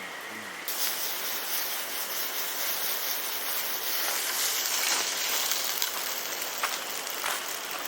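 Chicken gizzards and garlic sizzling in hot oil in a pan. The sizzle starts suddenly about a second in, with scattered pops and crackles.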